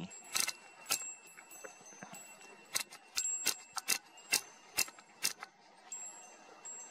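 Sharp mechanical clicks from the Nikon P1000's control dial being turned notch by notch to raise the exposure. There are two clicks near the start, then a quicker run of about seven from about three seconds in.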